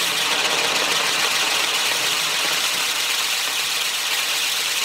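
Firework wheel (Catherine wheel) spinning on its post, its drivers spraying sparks with a loud, steady hiss.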